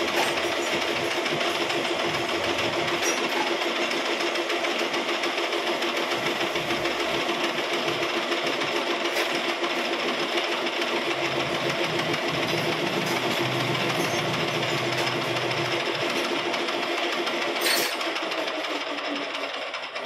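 Metal lathe running, its chuck spinning a small metal part against the cutting tool: a steady mechanical drone with a constant hum. A brief click comes near the end, and the noise then eases slightly.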